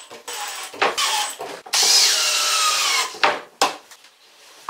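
Cordless drill-driver with a Robertson number one bit driving small 3/4-inch stainless steel screws into a wooden cabinet panel: a few short runs, then one longer run about two seconds in with the motor's pitch falling as the screw seats. Two sharp knocks follow.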